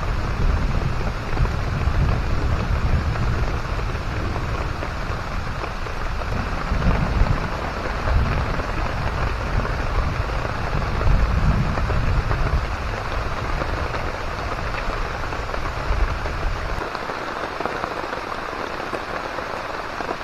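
Heavy rain pouring down steadily in a thunderstorm, with a deep rumble underneath that swells now and then and stops abruptly about three-quarters of the way through.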